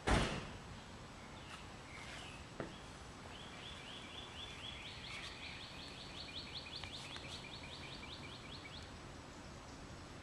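A bird calling in a fast series of short, evenly repeated chirps, about six a second for some five seconds. A sharp thump comes right at the start and a single click a little later.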